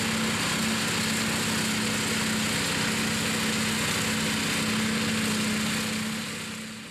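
ATV-towed flail mower at work: its 13 hp petrol engine drives a hammer-flail rotor through rough grass, together with the towing ATV's engine. The sound is a steady hum over a dense high hiss, and it fades out near the end.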